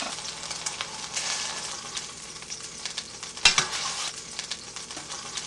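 Chicken cutlets frying in a skillet: a steady sizzle and crackle of hot fat, with one sharp knock about three and a half seconds in.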